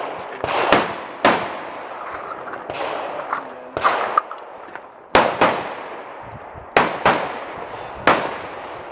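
Gunshots from a competitor's firearm during a 3-gun stage: about eight sharp shots at an uneven pace, some in quick pairs, each trailing off in echo.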